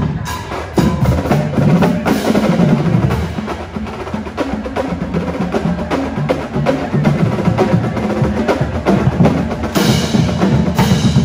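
Marching band drumline playing a cadence: rapid snare drum hits over pitched bass drums, with a louder, brighter crash about ten seconds in.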